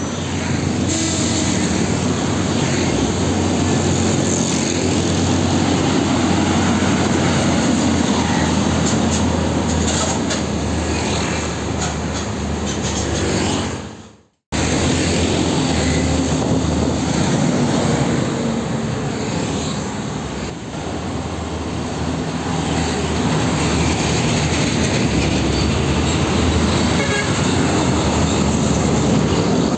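Heavy diesel trucks and motorcycles passing close on a road: steady engine and tyre noise. The sound cuts out for a moment about halfway through, then resumes with another truck going by close.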